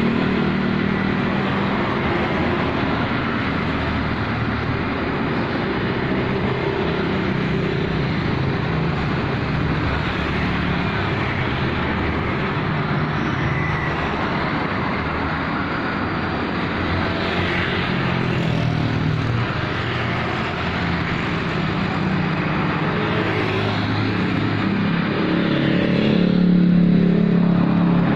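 Road traffic: motor vehicles driving past, with steady engine hum and tyre noise that rise and fall as they pass, loudest near the end as one goes by close.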